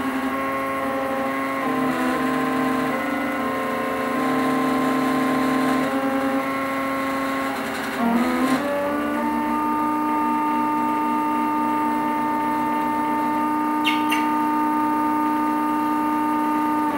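Stepper motors of a home-built Momus CNC v2.0 router driving its axes through a G-code test program without cutting: steady whining tones that jump to new pitches every couple of seconds as each move changes speed, then one tone held through the second half.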